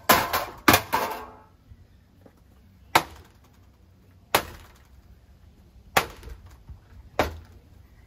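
Blades of a spinning Harbor Breeze ceiling fan whacking objects thrown up into them. A quick flurry of hits with rattling comes at the start, then four single sharp smacks roughly every one to one and a half seconds.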